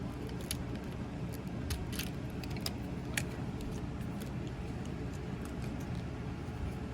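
Small plastic clicks and light rattles at irregular moments as the parts of a Transformers Masterpiece Movie Ratchet figure are moved and tabbed into place by hand, over a steady low hum.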